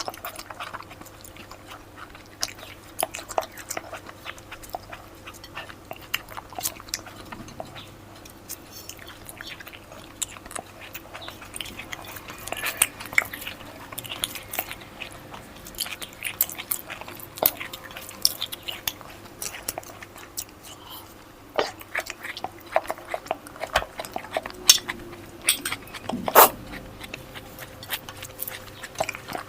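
Close-miked chewing and lip-smacking of a person eating a vegetarian thali: a steady run of wet smacks and clicks, with a louder smack near the end.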